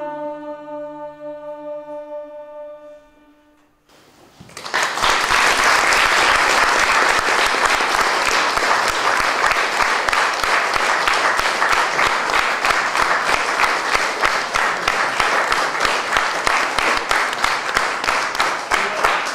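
A choir with violin and cello holds a final chord that fades away over about four seconds. The audience then breaks into loud, steady applause.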